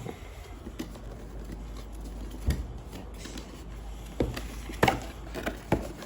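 A cardboard product box being opened and its contents handled: scattered taps and knocks with paper and cardboard rustling.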